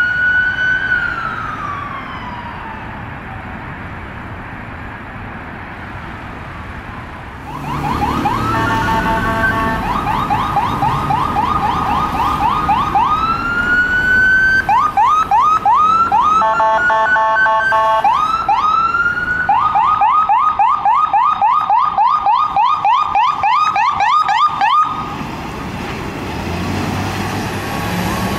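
Electronic sirens of DC Fire & EMS emergency vehicles. A wail falls away and fades in the first few seconds. From about seven seconds in, a loud, close siren switches between a fast yelp and a rising wail, broken twice by long multi-tone horn blasts, and cuts off suddenly near the end, leaving low engine and traffic rumble.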